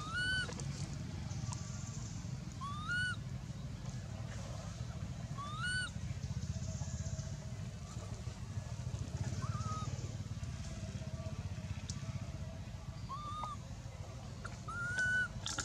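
Infant long-tailed macaque crying: six short coos that rise and fall in pitch, a few seconds apart, over a steady low rumble.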